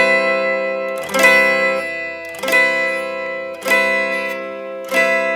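Electric guitar strumming a C major 7 chord, struck about five times roughly a second apart. Each strum is left to ring out before the next.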